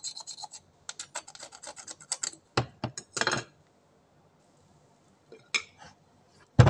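Kitchen knife blade scraping a mussel shell clean, a quick series of short rasping strokes over about three seconds. Near the end, one thump as a piece of pumpkin is set down on a cutting board.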